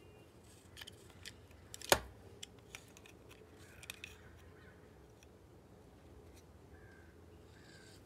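Stainless digital caliper being slid and closed onto a plastic rocker switch: a few small clicks and rattles of metal jaws against plastic, with one sharp, loud click about two seconds in.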